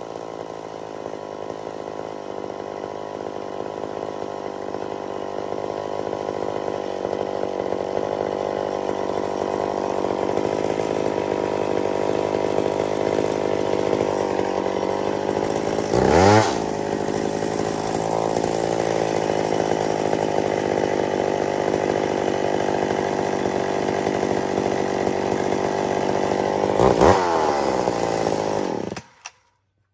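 McCulloch SP81 two-stroke chainsaw cutting deep in a big log, the engine held steady under load by the cut. About halfway through and again near the end, the pitch sweeps sharply up as the saw revs higher. The carburettor is tuned to the ragged edge, and the sound cuts off suddenly near the end.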